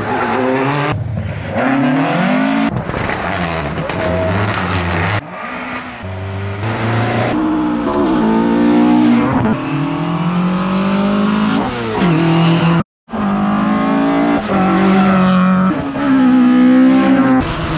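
Rally cars on a tarmac stage accelerating hard through the gears, engine pitch repeatedly climbing and dropping at each shift, with tyres squealing in the corners. Several passes follow one after another, and the sound cuts out for a moment about thirteen seconds in.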